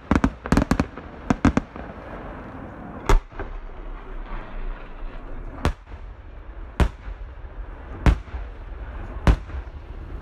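Aerial fireworks display: a quick run of shell bursts in the first second and a half, then single sharp bangs every one to two seconds, with steady crackling between them.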